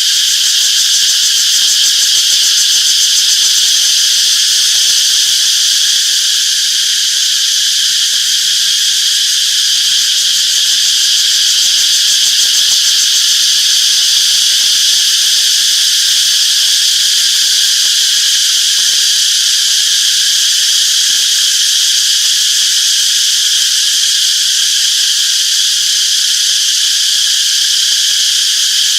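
A chorus of cicadas buzzing continuously: a steady, high-pitched shrill that holds at an even level without breaks.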